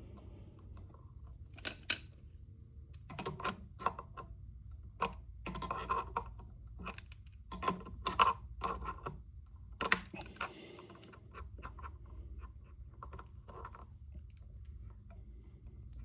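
Irregular metallic clicks and short scrapes of Siltech Triple Crown speaker cable terminals being fitted and tightened with a wrench, clustered over the first ten seconds or so and then dying away, over a steady low hum.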